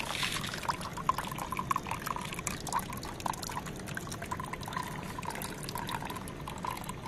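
A thin stream of flush water and coolant pouring from a motorcycle's cooling-system drain-bolt hole and splashing into a plastic tub of liquid. It is a steady trickle with many small splashes, the cooling system being drained during a coolant flush.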